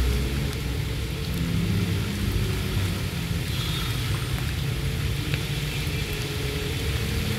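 Steady hiss and patter of falling water from the plaza fountain's jets and the rain, with a low rumble underneath.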